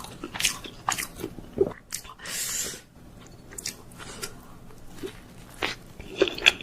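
Close-miked eating of instant noodles and dumplings: wet chewing and sharp mouth clicks, with a short hissing slurp about two seconds in.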